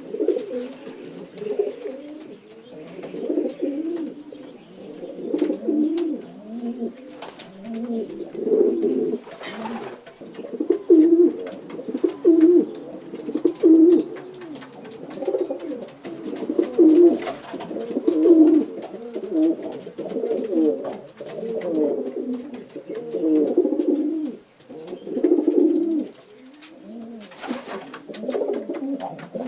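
Pigeons cooing, low throaty calls repeated one after another without a break. There are two brief rustling noises, one about a third of the way through and one near the end.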